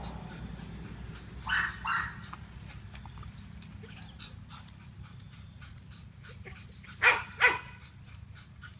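Dog barking: two quick pairs of short barks, one pair about a second and a half in and another about five seconds later, over a low steady hum.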